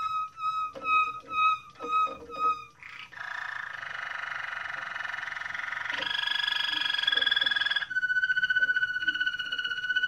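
Waterslager canary singing: separate repeated notes, about two a second, then a continuous rolling trill from about three seconds in. It shifts to a higher, louder trill about six seconds in and settles into a steady trill near the end.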